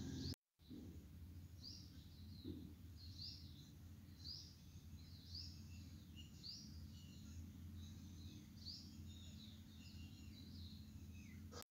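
Faint short bird chirps repeated roughly once a second over a low steady hum.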